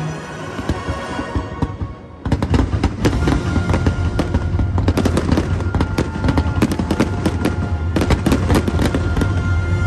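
Fireworks shells and rockets bursting in rapid, dense succession, many sharp cracks and bangs, over the show's music. After a brief lull the barrage starts suddenly about two seconds in and keeps going.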